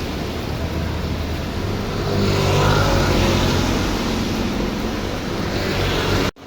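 Steady rain and road noise with a car engine, its pitch rising from about two seconds in and holding for a few seconds. The sound cuts out abruptly for an instant near the end.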